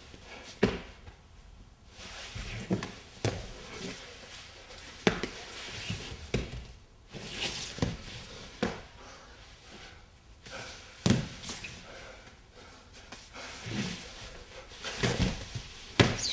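A dancer's body and lead-covered gloves and shoes knocking and scraping on the floor as he rolls and crawls: irregular knocks about a second apart, with scuffing between them.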